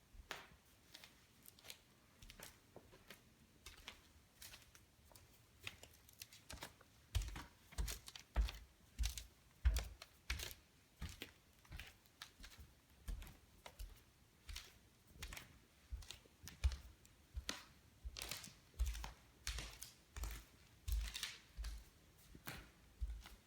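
Cali Bamboo floorboards clicking and popping under foot. Each sharp click comes with a low thud, at first sparse and faint, then from about seven seconds in steadily, one or two a second, like paced steps.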